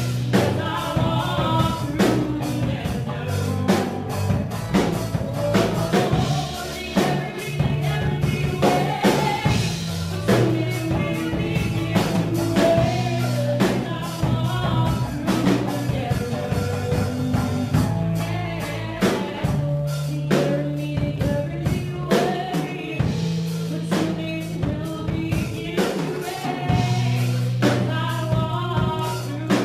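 Live gospel band playing: women singing over electric guitar, bass guitar and drum kit, with a steady beat.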